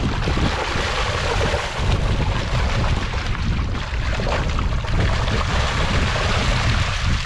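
River water rushing and churning along the rocky bank, with wind buffeting the microphone into a low rumble.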